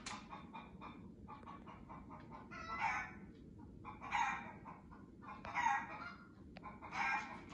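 Chickens clucking, played through a television's speakers: softer clucks at first, then louder calls about every second and a half.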